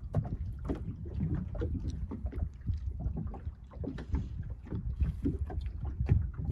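Small aluminium boat on choppy water: waves slapping against the hull with irregular knocks, over a low wind rumble on the microphone.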